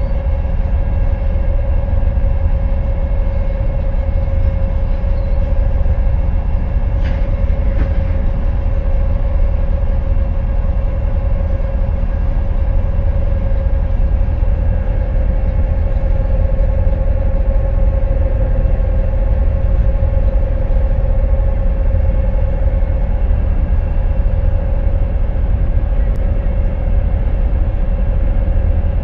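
Heavy machine's engine running steadily: a loud low rumble with a constant whine above it, unchanging throughout.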